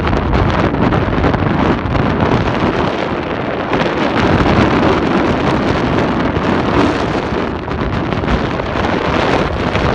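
Strong wind blasting over the microphone: a loud, steady rush of wind noise.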